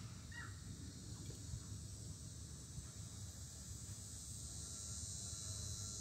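Cicadas buzzing steadily in a high, even drone that grows a little louder in the second half, with a brief bird call about half a second in and a low rumble underneath.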